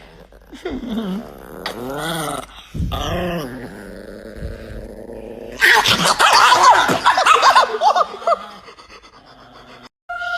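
A dog vocalizing: a few separate wavering calls, then a louder, busier run of calls in the middle.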